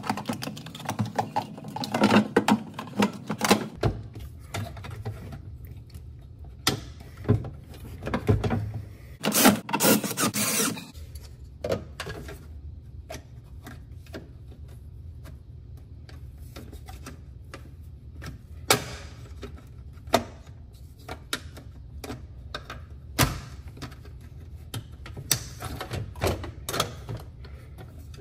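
Hands working on refrigerator parts: scattered clicks and taps, with two louder bouts of rustling and clicking, over a low steady hum.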